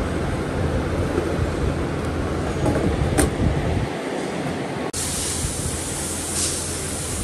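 Steady workshop machinery noise, a low rumble with hiss, with a sharp click about three seconds in. The noise changes character abruptly near five seconds.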